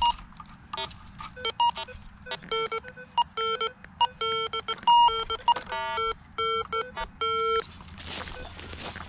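Minelab metal detector giving a run of short target-tone beeps at a few different pitches, low and higher, as its coil is swept over a freshly dug hole. The beeps stop about eight seconds in and a rustling follows.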